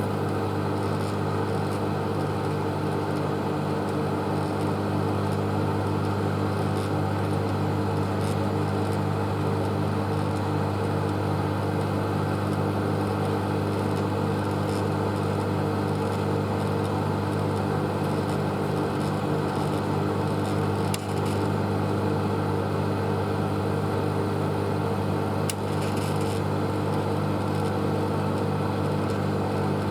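A 700 W microwave oven running: a steady low electrical hum that holds an even level throughout.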